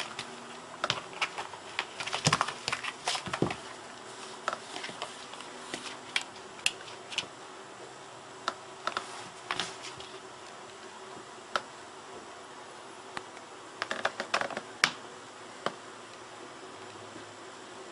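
Irregular light scuffs and clicks of a cat wriggling on carpet with its head stuck in a soft slipper, bunched in a flurry about two to three seconds in and again about fourteen seconds in, over a steady hiss.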